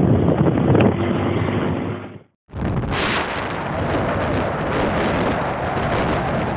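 Rushing traffic noise as a car drives past, cut off abruptly about two seconds in. It is followed by a steady rush of wind on the microphone and road noise from a moving motorcycle.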